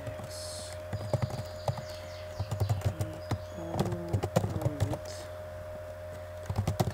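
Computer keyboard keys clicking in short bursts of typing, with pauses between, over a steady electrical hum.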